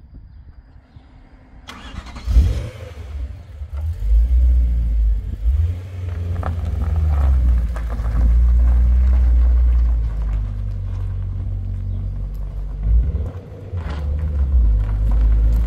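BMW S65 V8 swapped into an E46 Compact, cranked and catching about two seconds in, then running with a deep, uneven rumble, its revs rising and falling as the car pulls away.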